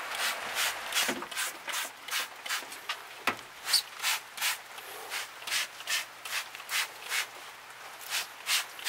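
A scrub brush working degreaser into a greasy engine in steady back-and-forth strokes, about two to three a second. There is a single knock about a third of the way in.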